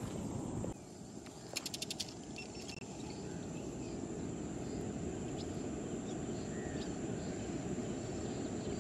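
Outdoor riverside ambience: a steady high insect drone over an even low background noise, with a quick run of clicks about a second and a half in and a few faint bird chirps.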